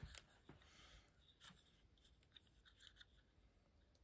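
Near silence, with faint small ticks and rubbing as a small toy car is turned over in the fingers.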